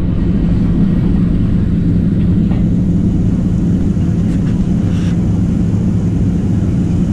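Cabin noise of a Boeing 737-700 in flight: the CFM56-7B turbofan engines running with a steady, even low hum over a haze of air noise, heard from a window seat beside the engine.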